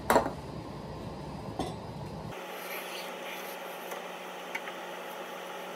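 One sharp knock of wood and saw blade right at the start as a Japanese pull saw's cut is finished, and a lighter knock a second and a half later. After about two seconds this gives way to a steady low workshop hum with a couple of faint taps.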